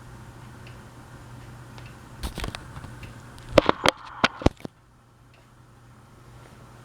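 Ceiling fan running with a steady low hum and faint ticking. It is broken by a rough cluster of clicks about two seconds in, then a quick run of about six sharp, louder clicks around the middle. After the clicks the background noise drops suddenly and slowly builds back up.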